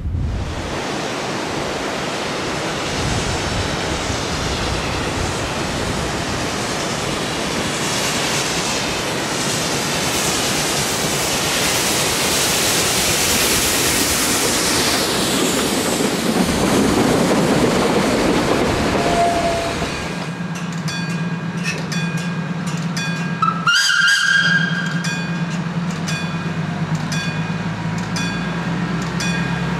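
A Furka HG 3/4 rack steam locomotive running past with its train, a dense steady hiss of steam and running noise. About two thirds of the way through this gives way to a small diesel shunting locomotive running with a steady hum, and a short whistle sounds soon after.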